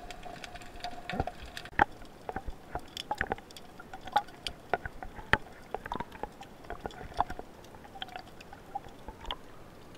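Underwater ambience picked up by a camera in its housing: irregular sharp clicks and crackles, several a second, over a low hiss, with a faint steady hum that fades after the first second or two.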